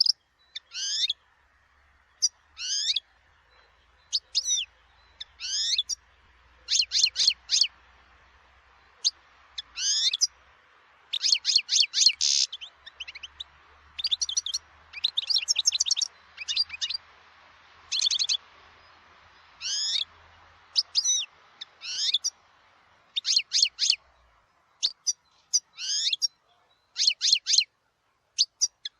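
European goldfinch singing: short phrases of quick, high twittering notes, one after another with brief pauses between them.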